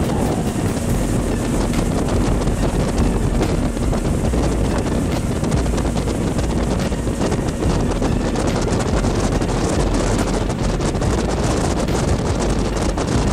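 Steady wind rumbling on the microphone aboard a boat under way, with the noise of the boat and the water beneath it.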